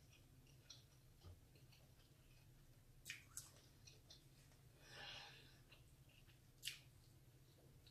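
Near silence: faint mouth sounds of a woman eating seafood, with a soft breath about five seconds in and a few small clicks.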